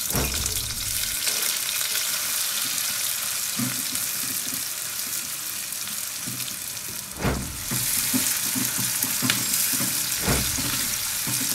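Sliced onions, garlic and chili frying in hot oil in a cast-iron wok: a steady sizzle as they are stirred with a silicone spatula, with a few dull knocks.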